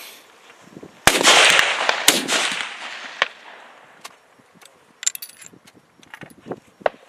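A rifle shot from a Snider Mk III breech-loader firing a .577 Snider cartridge: a loud crack about a second in that rings away over about two seconds, with a second sharp report about a second later. Then come a few light metallic clicks as the hinged breech block is handled.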